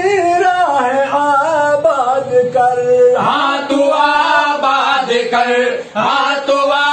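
Men's voices singing an Urdu nazm together in long, wavering held lines. The singing grows fuller about three seconds in.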